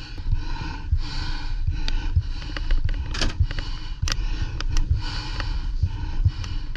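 Close breathing in rhythmic puffs, with repeated low thumps and rustle of gear against a body-worn camera as a player moves, and scattered sharp clicks.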